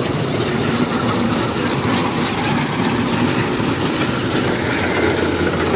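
Kubota DC-105 rice combine harvester running steadily close by as it cuts lodged, flattened rice.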